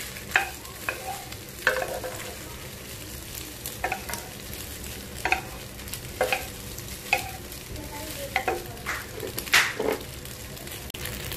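Wooden spatula stirring elbow macaroni and onions frying in a nonstick pan: a steady sizzle under irregular scrapes and knocks of the spatula against the pan, with one sharper knock late on.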